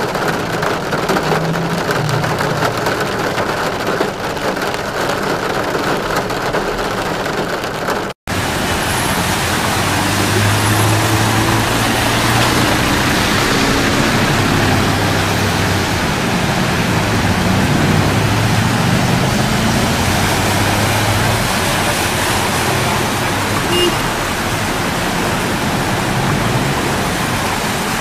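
Heavy rain with traffic: a steady rushing hiss of rain and wet road noise. It breaks off for an instant about eight seconds in, and a low engine hum runs under the hiss for a while after that.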